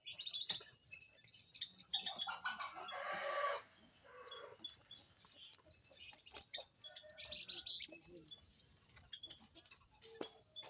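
Birds calling: short high chirps throughout, with a louder, harsher call from about two to three and a half seconds in.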